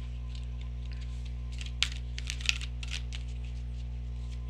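Oracle cards being shuffled by hand: a run of quick, crisp card snaps and taps, loudest about two seconds in. A steady low hum sits underneath.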